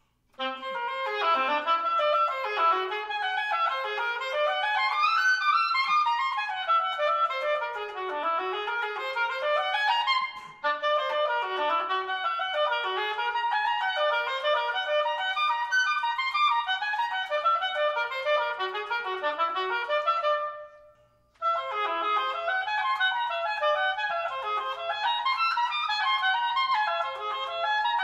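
Solo oboe playing fast running passages that sweep up and down a whole-tone scale. There is a short break about ten seconds in, and a held note fades out to a pause about twenty seconds in before the runs resume.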